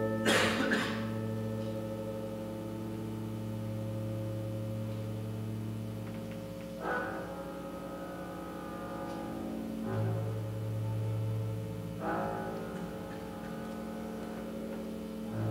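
Chamber orchestra playing slow, sustained contemporary classical music: cellos and double bass hold long low notes, while struck percussion adds a sharp stroke at the start and a few softer ringing strokes later on.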